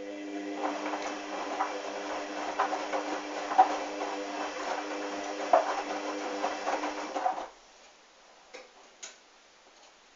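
Hoover washing machine's drum motor running with a steady hum while the drum tumbles a wash of wet, sudsy towels with irregular knocks. It stops suddenly about seven and a half seconds in, then two faint clicks follow.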